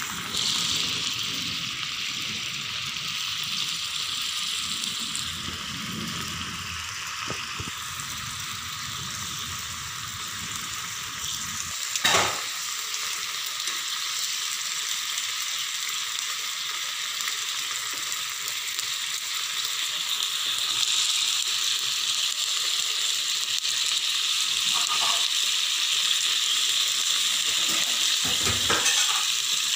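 Beef tapa sizzling and bubbling as it fries in its soy-sauce and vinegar marinade in a pan, stirred with a metal spatula. One sharp knock of the spatula on the pan about twelve seconds in, and a few softer knocks near the end.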